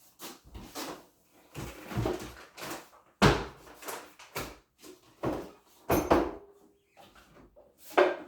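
Kitchen handling sounds: a string of separate knocks and clunks as items and containers are picked up and set down, with sharper knocks about three, six and eight seconds in and quieter rustling between.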